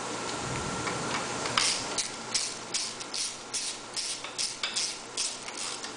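Hand socket ratchet turning a bolt: a quick run of ratcheting strokes, about three a second, starting a second and a half in.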